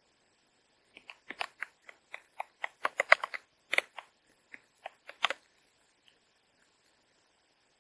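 A metal spoon scrapes cooked rice out of a plastic pouch and knocks against a metal camping pot. It makes a quick, irregular run of short scrapes and clicks that stops after about four seconds.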